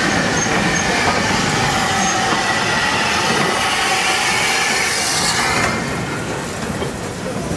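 Small steam tank locomotives rolling slowly past at close range, with a rumble of wheels on rail and wheel flanges squealing thinly. The noise drops away about six seconds in as they move off.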